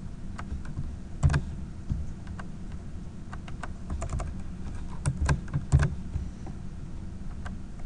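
Computer keyboard keys being tapped in scattered clicks while code is copied and pasted in an editor, with a louder cluster about a second in and several more around the fifth and sixth seconds, over a low steady hum.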